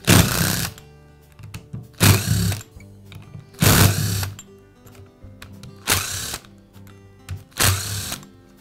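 Cordless drill/driver running in five short bursts, backing out the screws that hold the top cover on a sander.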